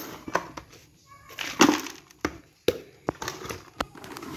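Plastic flower pots handled and knocked, with scattered sharp clicks and taps. There is one louder rustling scrape of potting mix about one and a half seconds in.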